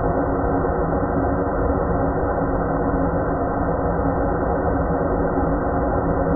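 Steady ambient drone: a constant low hum with several held tones over a rumbling wash of noise, unchanging throughout.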